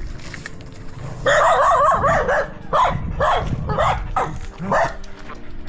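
A dog yelping and whining in a quick run of high-pitched calls a little over a second in, then a few single yips spaced apart.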